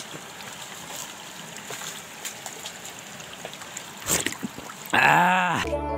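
Small forest stream trickling over rocks, with scattered light taps. About five seconds in, a louder pitched sound rises and falls and gives way to music.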